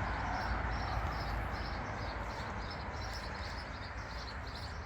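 Steady rushing background noise with a small bird chirping over it, short high chirps repeating about three or four times a second.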